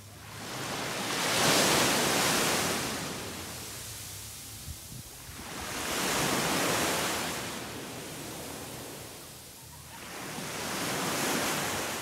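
Small waves breaking and washing up a sandy beach, three times, each swelling up and fading away over a few seconds.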